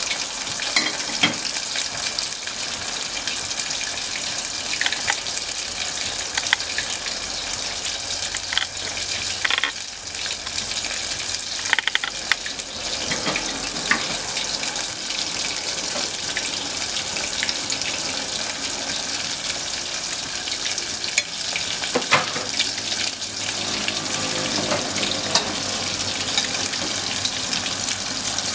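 Bone-in beef short ribs deep-frying in hot oil: a steady sizzling hiss with scattered sharp pops and crackles.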